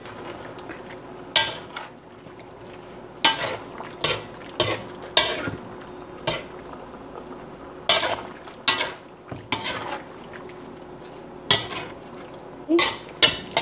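Spatula stirring a chunky pork-innard and vegetable stew in a pan: irregular scrapes and knocks against the pan, roughly one a second, over a faint steady hum.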